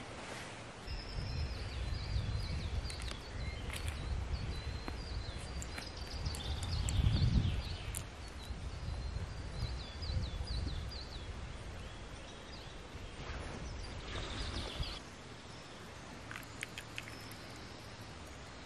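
Small songbirds chirping and singing in short repeated phrases, over a low, gusting rumble of wind that swells midway and dies down about 15 seconds in.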